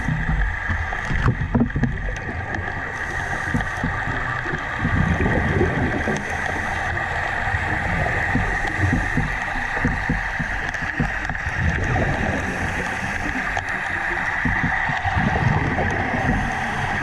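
Airlift dredge working on the seabed, heard underwater: a steady hiss of air with irregular low, gurgling bubbling.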